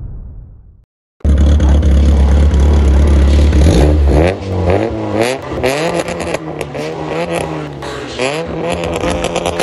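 Tuned 1.8-litre four-cylinder of a VAZ 2110 with individual throttle bodies, running through a straight-through 4-2-1 exhaust with twin tips. After a loud low rumble, the revs are blipped up and down several times, with a held rev in between. In the first second the tail of an intro sound effect fades out.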